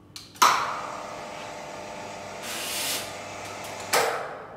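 Electric roller shutter door motor started from a wall button. A sharp clack about half a second in, then a steady motor hum with the running noise of the metal slats, and another clack near the end.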